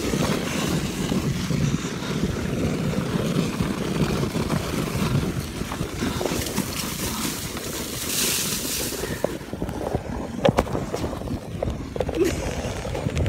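Wind buffeting a phone's microphone during a fast sled ride down snow, over a steady rumble from the sled running over the snow. A burst of hiss comes a little past halfway, and a few sharp knocks come near the end.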